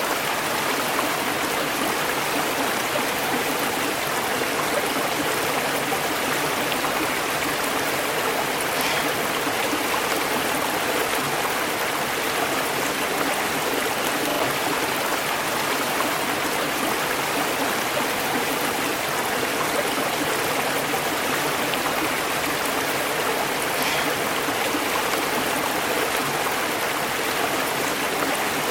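River water flowing over rocks in a steady, unbroken rush, with no lulls or changes.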